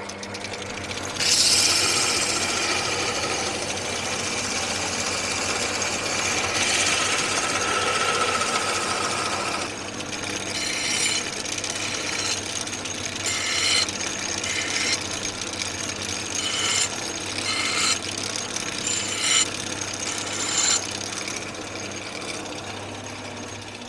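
Bench belt sander running with its motor humming steadily, while the end of a flat metal bar is pressed to the belt to round it off. There is a continuous grinding for about the first ten seconds, then a string of short grinding touches that stop a few seconds before the end.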